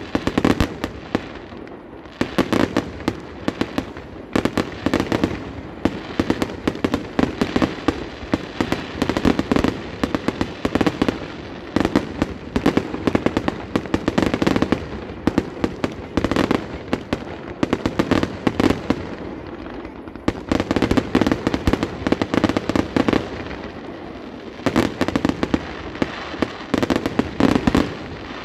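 Fireworks display: aerial shells bursting in quick clusters of many sharp bangs and pops, with brief lulls between clusters.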